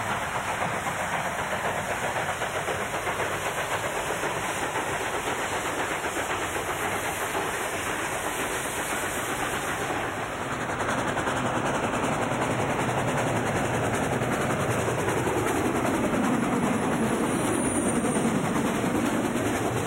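Steam locomotives working a train: a steady hiss and chuff of steam exhaust, then louder from about halfway as a train rolls close by, its wheels clicking over the rails.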